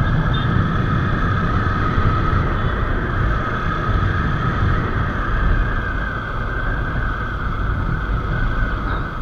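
Motorcycle riding along a road: the engine running steadily under continuous wind and road rush on the microphone.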